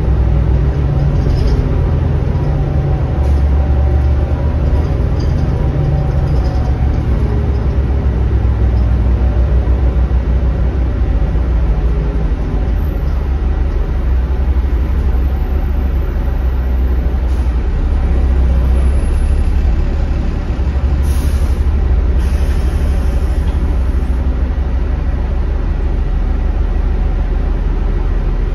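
Cabin sound of a Denning Phoenix low-floor bus with a Caterpillar diesel engine driving along: a steady, loud low engine drone, its pitch rising and falling in the first part as the bus accelerates and shifts. A brief hiss about two-thirds of the way through.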